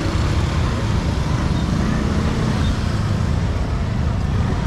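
Busy street traffic: a steady, loud low rumble of passing vehicles.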